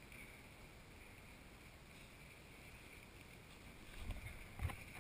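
Faint, steady background noise of a large indoor football hall, then two dull thuds close together near the end, typical of a football being struck during play.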